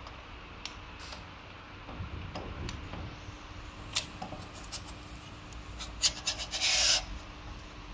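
Handling noises from a folding e-bike's handlebar stem and cables being moved by hand: scattered clicks and knocks, then a louder cluster of clicks and a scraping rub about six seconds in.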